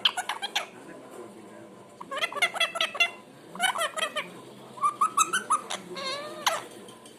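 Pet parrot making a run of varied calls and chatter in about five short bursts, with pitch sliding up and down, separated by pauses of about a second.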